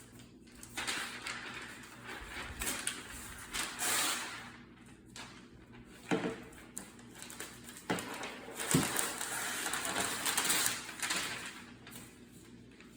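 Packaging of a new MacBook Air being handled: uneven rustling that swells and fades, with a few light knocks about six, eight and nine seconds in.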